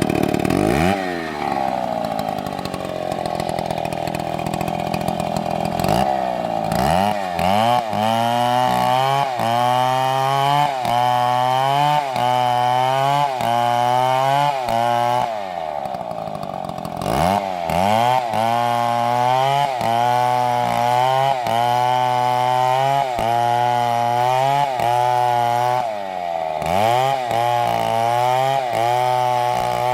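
Large two-stroke chainsaw running loud. It drops from high revs to a steadier, lower speed over the first couple of seconds, then its engine speed swings up and down about once a second, with a short steady spell around the middle.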